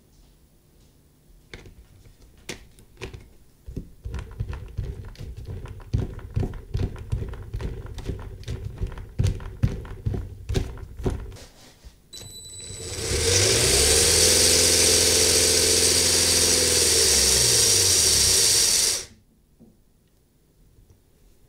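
Small plastic clicks and snaps as greased Lego and 3D-printed parts are handled and fitted onto an axle, then a Lego electric motor spins a wheel up with a rising whine, runs steadily for about six seconds and winds down, cutting off sharply.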